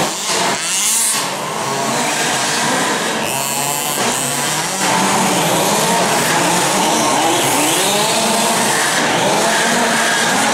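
Several large-scale RC buggies' small two-stroke petrol engines buzzing together, revving up and down so that their pitches rise and fall over one another as the cars race around the track.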